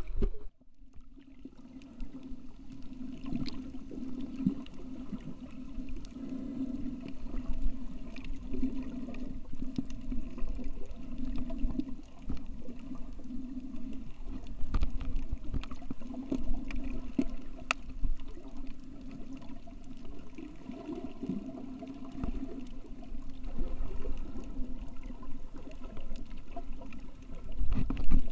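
Muffled underwater water noise picked up by a submerged camera, with a low hum that swells and fades every second or two and a few faint clicks.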